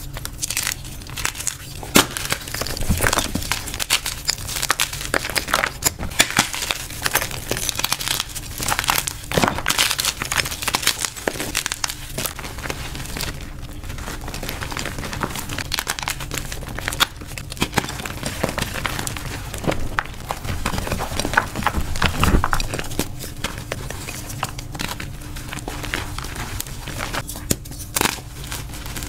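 Blue-dyed gym chalk crushed and crumbled between bare hands: a dense, uneven run of powdery crunching packed with sharp little crackles as blocks and chunks break apart.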